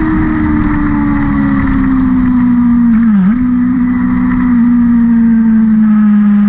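A racing vehicle's engine running on a circuit, its pitch falling slowly and steadily, with a brief sharp dip in pitch about three seconds in.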